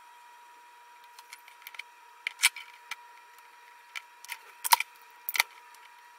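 Sharp clicks and knocks of small tools and a circuit board being handled on a workbench mat, a few early on and a denser, louder run in the second half, over a faint steady high-pitched whine.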